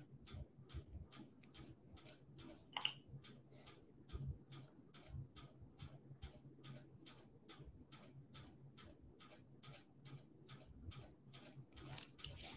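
Near silence with faint, evenly spaced clicking, about three or four clicks a second, and one brief higher-pitched sound about three seconds in.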